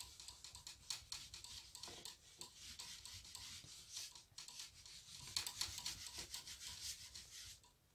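Board eraser wiping marker off a whiteboard in rapid back-and-forth strokes, a dry rubbing hiss that stops shortly before the end.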